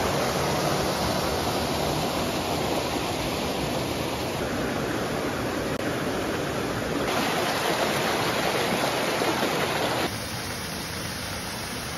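Small waterfall and its rocky cascades rushing steadily, with a slight drop in loudness about ten seconds in.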